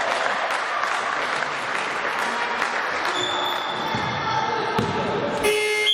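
Crowd clapping with music playing underneath. Near the end a loud steady tone suddenly cuts in.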